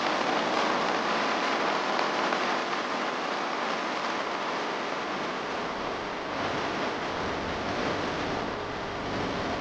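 Steady whooshing air noise from a running desktop PC's cooling fans, easing off slightly after the first few seconds.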